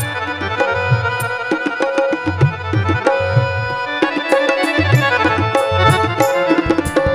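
Instrumental bhajan music: Indian hand drums keep a quick, even beat under sustained reedy melody notes as the rhythm is stepped up.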